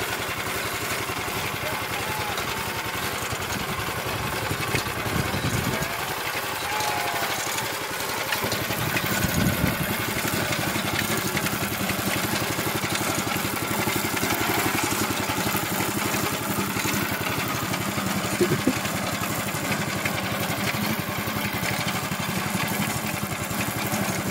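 Small water-pump engine of a homemade mini tractor running steadily as the tractor drives over dirt, its pitch wavering briefly a few times.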